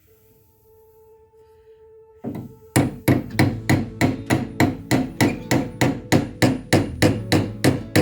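Background music: a held note, then from about three seconds in a fast, even percussive beat of sharp strikes, about three and a half a second, with pitched notes ringing between them, in the manner of a slapped or strummed acoustic guitar.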